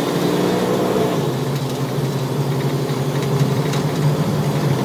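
2006 Jeep Wrangler Sport's six-cylinder engine running steadily while driving, heard from inside the cab, with a slight drop in pitch about a second in.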